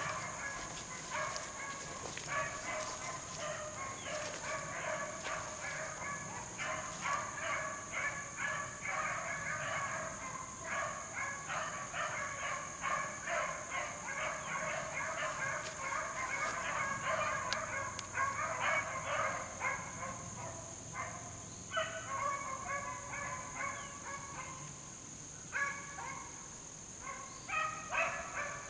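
A pack of beagles baying in chorus as they run a rabbit's trail, the cries coming thick and overlapping, then breaking up with short pauses near the end. A steady high-pitched whine runs underneath.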